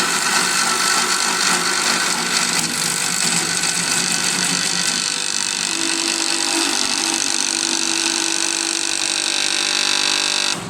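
Automatic wood-turning lathe running while turning a wooden rake handle: a steady machine whine over the hiss of cutting. It cuts off suddenly near the end.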